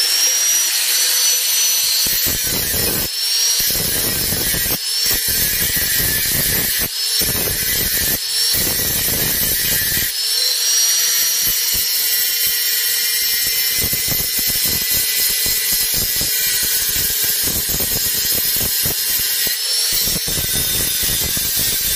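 Electric angle grinder running at full speed with a steady high whine, its disc grinding a small metal part held in the hand. The rough grinding noise surges and drops again and again as the disc bites into the metal and lifts off.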